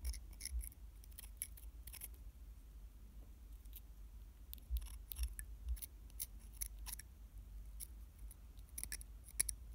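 Hobby knife blade scraping and shaving the edge of an eye hole in a 3D-printed resin doll head: light, irregular scratchy clicks, several each second.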